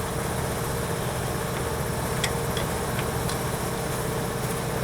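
Engine idling steadily with a low rumble and a faint constant whine; a few light clicks sound in the middle.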